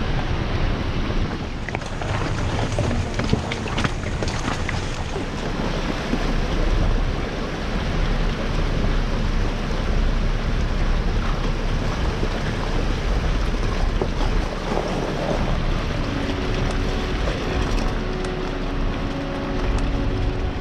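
Steady rumbling rush of an off-road vehicle driving along a gravel trail, with wind buffeting the microphone. Steady music tones come in about three-quarters of the way through.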